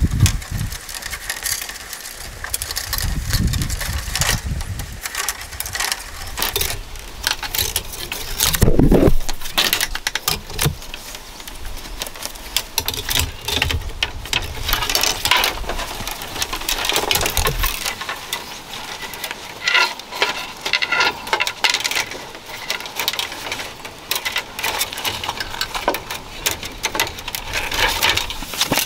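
Split-bamboo strips and thin bamboo strands clicking and rustling as they are woven by hand into the crown of a bamboo hat. It is a dense, uneven run of small sharp ticks and scrapes, with now and then a dull low thump.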